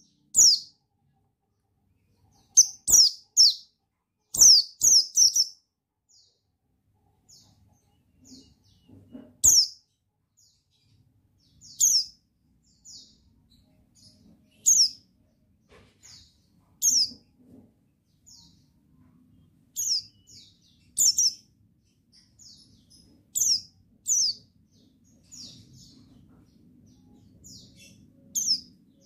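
Buxtoni white-eye (pleci) giving sharp, high, down-slurred chirps, singly and in quick runs of three or four, every second or two.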